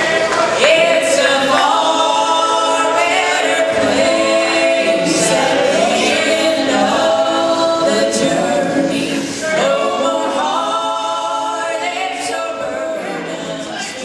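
Gospel group of men's and women's voices singing together in harmony, holding long chords; the level slowly falls away near the end.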